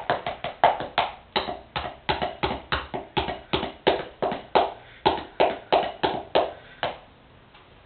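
Wooden drumsticks beating a fast rhythm on sneakers used as a makeshift drum kit: dull, sharp taps about four a second, stopping about a second before the end.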